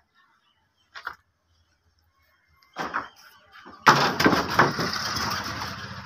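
Wooden shuttering boards being knocked loose from a freshly cast concrete lintel: two short knocks, then a loud clatter about four seconds in that trails off over the next two seconds.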